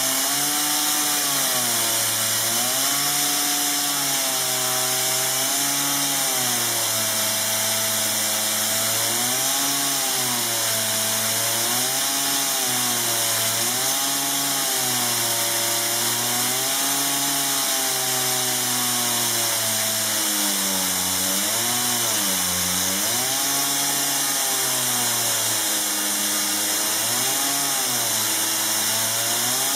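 Dolmer pneumatic chainsaw, driven by compressed air at 5 bar, cutting timber: a loud hiss of exhausting air over a motor note whose pitch rises and falls again and again as the saw works.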